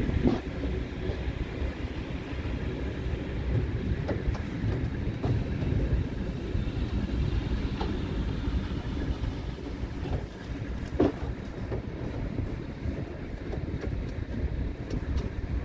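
Vehicle on the move: a steady low road rumble with scattered clicks and rattles, the sharpest about eleven seconds in.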